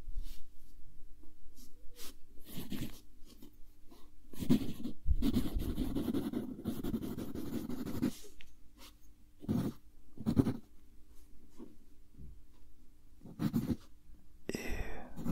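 Graphite pencil writing on lined paper close to the microphone: irregular bursts of scratchy strokes with short pauses between them.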